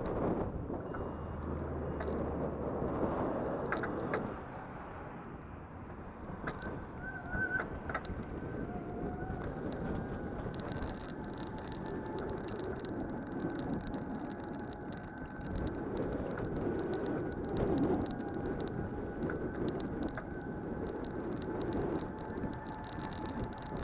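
Heartway S12X Vita Monster electric mobility scooter driving: its drive motor whines with a steady two-note tone that comes in about six seconds in and holds, over wind noise on the microphone.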